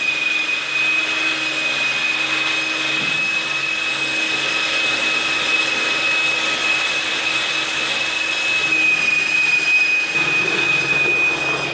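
Cordless drill with a mixing paddle running steadily, stirring thick textured paint in a plastic bucket: a loud, even motor whine that cuts off suddenly at the end.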